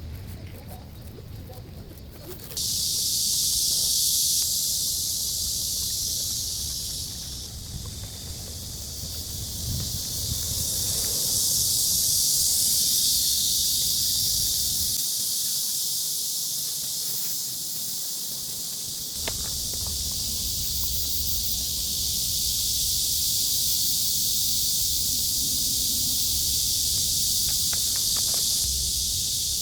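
Cicadas singing in summer: a dense, steady, high-pitched buzzing chorus that starts suddenly a couple of seconds in, over a low outdoor rumble.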